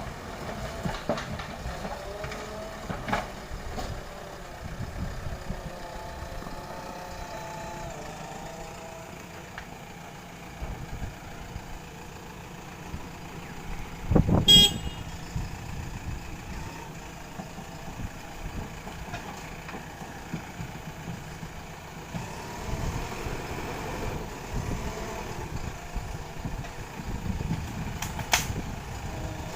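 Diesel engine of a JCB 3DX Super backhoe loader running steadily. About halfway through there is one short, loud burst, and a sharp click comes near the end.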